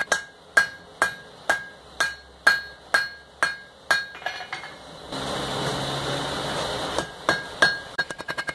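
Blacksmith's hand hammer striking red-hot iron on an anvil, about two blows a second, each followed by a bright ring from the anvil. About five seconds in, the blows stop for a steady rushing noise lasting about two seconds. Then the hammering resumes and quickens near the end.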